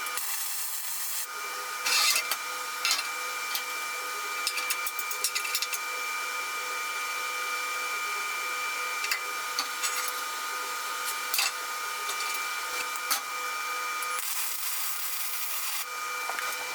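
MIG welding on steel grate bars: crackling hiss of the arc in bursts, densest briefly at the start and again near the end, with scattered sharp clicks. A steady whine runs underneath.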